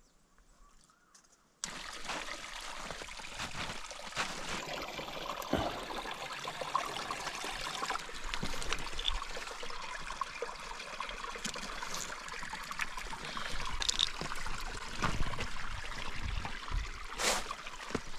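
Water trickling steadily, with scattered small clicks, starting suddenly after near silence about a second and a half in.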